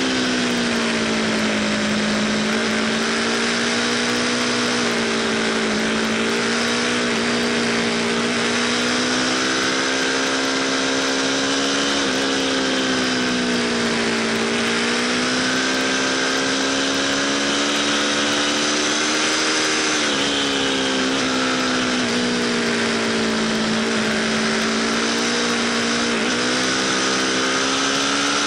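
Onboard sound of an Aprilia RSV4 Factory's V4 engine at speed on track. The engine note rises and falls over a few seconds at a time, with a few sudden steps in pitch, under a steady rush of wind on the microphone.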